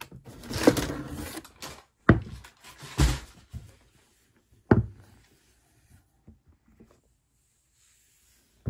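Tissue paper crinkling and rustling as it is pushed back in a shoebox, then three sharp thumps over the next few seconds as rubber-soled sneakers are lifted out and set down on a wooden surface.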